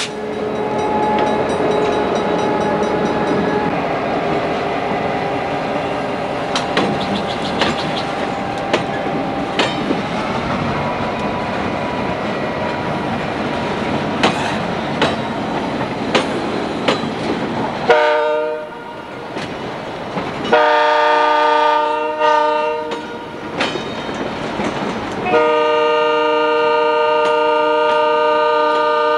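Burlington Northern diesel locomotives rolling past with engines running and wheels clicking over rail joints. About 18 seconds in a multi-chime locomotive air horn sounds: two blasts of a few seconds each, then a third starting about 25 seconds in and held.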